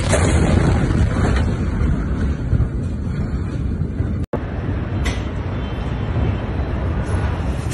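Loud, steady low rumbling noise on a phone's microphone, broken by a brief total dropout about four seconds in.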